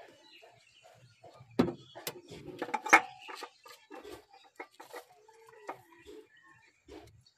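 Scattered clinks and knocks of metal parts and tools being handled while fitting a new oil filter to a van engine; the two loudest knocks come about one and a half and three seconds in. Faint farm-animal calls sound in the background.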